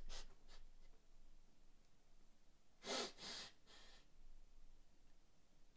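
A man's stifled, near-silent laughter: quiet breathy huffs and snorts through the nose and hand, with a cluster of two or three sharp breaths about three seconds in.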